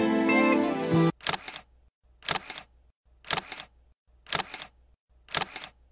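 Camera shutter firing five times, about once a second, each shot a quick double click, starting as background music cuts off about a second in.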